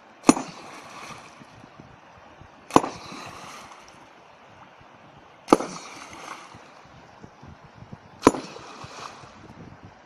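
A long-handled sledgehammer struck four times onto a submerged river rock, about every two and a half seconds, each blow a sharp crack followed by a splash of water. This is hammer fishing: the blows against the rock stun fish sheltering beneath it.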